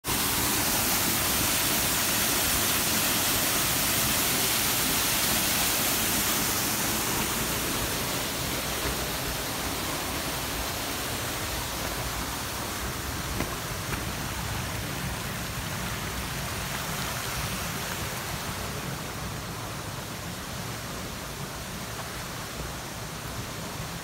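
Shallow rocky stream running and splashing over stones: a steady rush of water, loudest in the first several seconds and slowly growing quieter.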